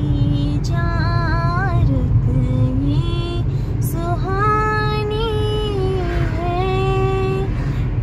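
A female voice singing a slow melody with long held, wavering notes, over the steady low rumble of a car driving at road speed, heard from inside the cabin.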